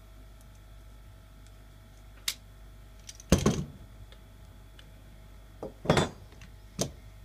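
Copper pipe and a tube cutter being handled and set down on a rubber mat: a sharp click about two seconds in, then a few knocks and clinks, the loudest about three and a half and six seconds in.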